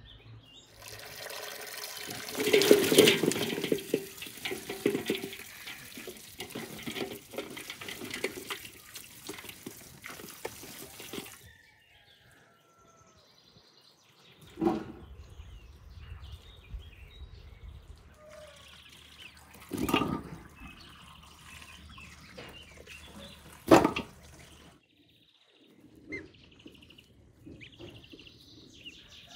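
Water running and splashing as fresh cherries are washed in a stone basin. It is loudest and steady for the first ten seconds or so, then quieter, with three sharp splashes or knocks later on.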